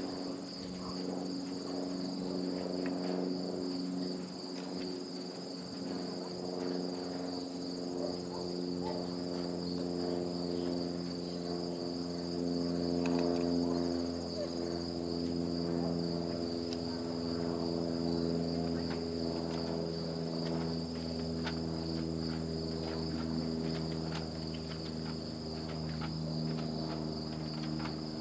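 A 2021 Yamaha XT250's single-cylinder engine running at low, steady revs, picked up by the camera's built-in microphone. Crickets chirp in a steady, pulsing high trill throughout.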